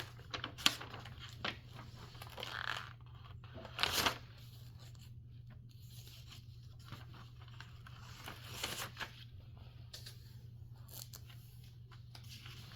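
Scattered rustling, scraping and tapping of objects being handled, with sharper clicks about four seconds in and a few more later, over a steady low hum.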